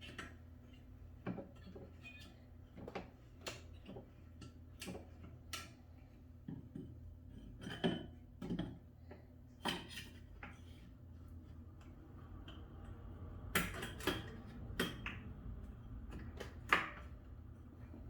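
Metal exercise-bike parts clinking and knocking as they are handled and fitted together, in scattered sharp clicks and knocks. The clicks come in two busier clusters, one in the middle and one near the end.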